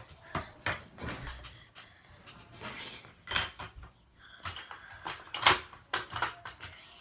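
Coins clinking and clattering as they are picked up and gathered by hand, a string of scattered sharp metallic clicks, the loudest about five and a half seconds in.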